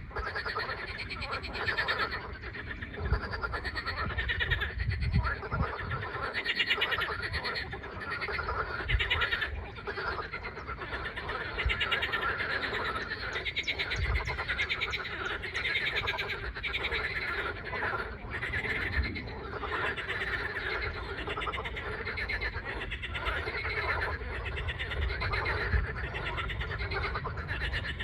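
A chorus of many frogs calling at once, their rapid pulsed calls overlapping continuously, with occasional low thuds underneath.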